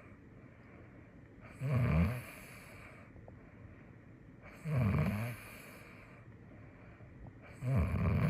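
Cat snoring in its sleep: three snores about three seconds apart, each lasting under a second.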